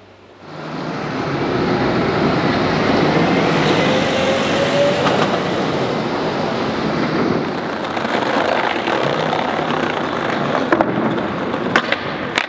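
City street noise: a steady wash of road traffic that swells in about half a second in, with a few sharp clacks near the end.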